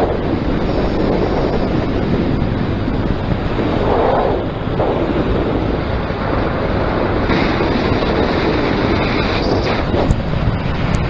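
Steady wind rush over the microphone of a paramotor pilot's camera, swelling about four seconds in, with a couple of sharp clicks near the end.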